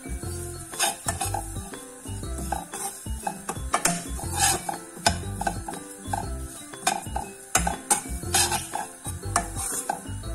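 Metal spoon stirring and scraping dry rolled oats around a kadhai, in repeated short strokes against the pan, as the oats dry-roast with no oil. Soft background music runs underneath.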